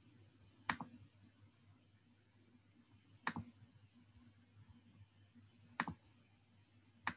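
Four faint, sharp computer clicks a couple of seconds apart, each with a softer second click just after it, over a low steady hum.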